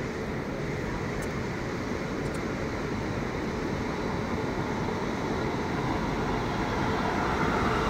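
WAP-7 electric locomotive starting off slowly and drawing nearer. It makes a steady running noise that grows gradually louder.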